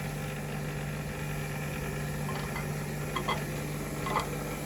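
Steady mechanical hum, with a few light clicks in the second half.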